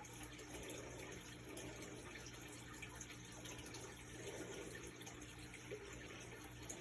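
Faint steady hiss with a low hum: room tone.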